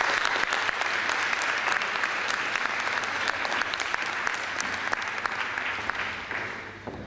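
Audience applause, many hands clapping at a steady level, fading away near the end.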